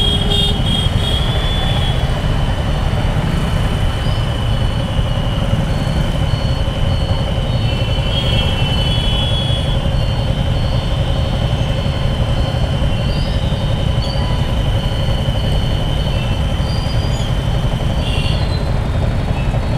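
Yamaha R15 motorcycle under way. Steady wind and road rumble on the rider's camera mic covers the engine, with a thin, steady high whine throughout.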